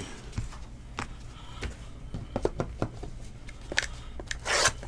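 Trading cards and a cardboard card box being handled on a tabletop mat: scattered light taps and clicks as cards are set down, and a short rustle about four and a half seconds in as the shrink-wrapped box is moved.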